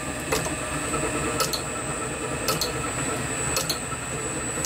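Vintage belt-driven lathe running with its spindle turning, a steady mechanical hum with a sharp tick about once a second. The spindle is running faster than wanted for the D-bit.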